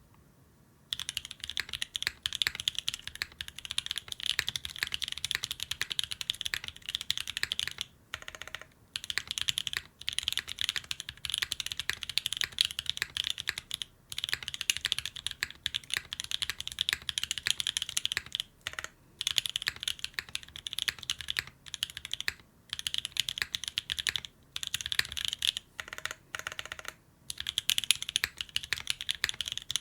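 Steady typing on a Graystudios Think6.5v2 custom mechanical keyboard with lubed and filmed Holy T1 tactile switches, an FR4 plate and GMK keycaps: a dense stream of keystroke clacks that starts about a second in, with a few brief pauses.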